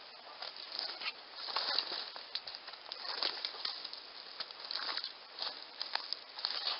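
Footsteps and rustling through dry brush and leaf litter: irregular crunches and crackles, some sharper than others.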